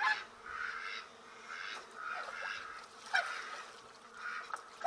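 Domestic geese honking over and over, about one call a second.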